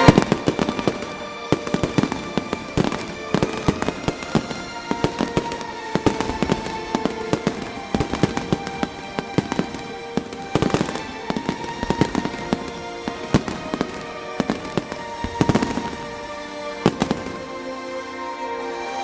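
Fireworks going off in rapid, irregular bangs and crackles, with the loudest bang right at the start, over music playing.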